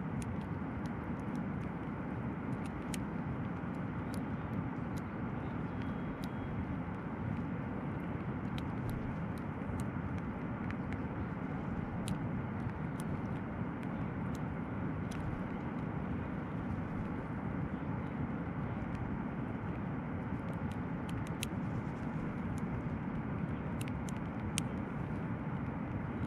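Steady rushing outdoor background noise, with faint scattered ticks from a hook pick working the pins of an old Yale padlock.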